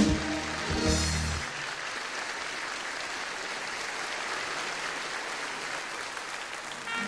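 A stage musical number ends on a final chord about a second and a half in, then a theatre audience applauds steadily.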